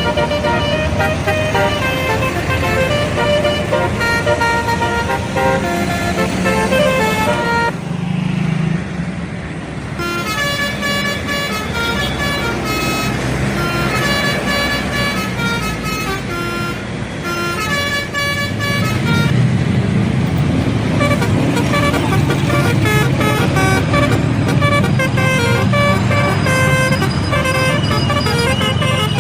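Indonesian bus 'telolet' musical horn playing short tunes of stepped notes, one phrase after another, with a brief break about eight seconds in. A bus engine runs underneath.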